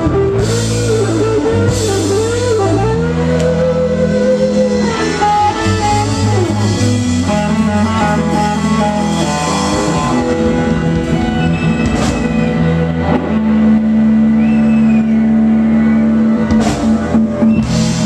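Rock band playing live: an electric guitar lead with bent, sliding notes over sustained guitar chords and a drum kit.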